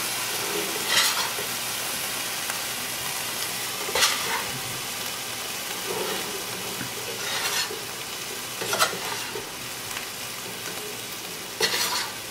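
Fried rice sizzling in a hot skillet, with a metal spatula scraping and turning it against the pan about five times.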